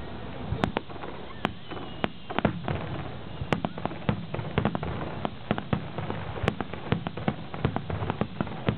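Aerial fireworks display bursting: many sharp bangs and cracks in quick, irregular succession, several a second.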